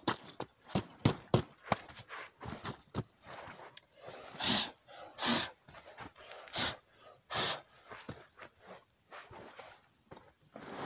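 Clothing and gear being handled: a string of short scuffs and crackles, then four louder scratchy swishes a little under a second apart in the middle, then quieter fiddling.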